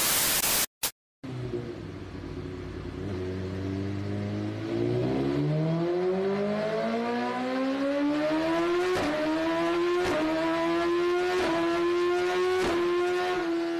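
A short burst of hiss, then an engine revving up: its pitch climbs steadily for several seconds and then holds, with a few sharp clicks near the end.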